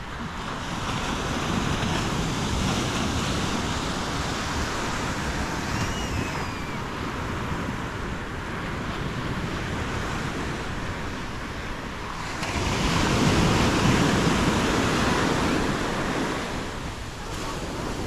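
Atlantic surf breaking and washing up a sandy beach in a continuous rushing wash that swells loudest about two-thirds of the way through, with wind on the microphone.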